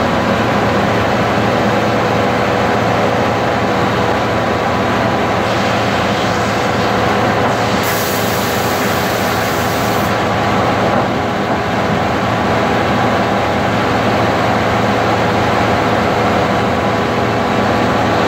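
Old sawmill machinery running steadily: the head saw spinning and the log carriage working. About eight seconds in, a harsher hissing sound lasts about two seconds as the saw cuts through the log.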